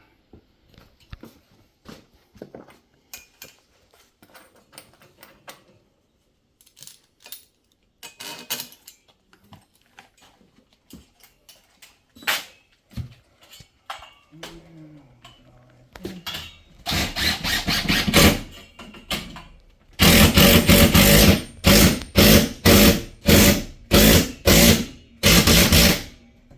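Scattered clicks and knocks from handling the metal strap and fasteners, then a cordless impact driver hammering lag screws through the earthquake strap into the wall: one long run about seventeen seconds in, then about seven short bursts in quick succession.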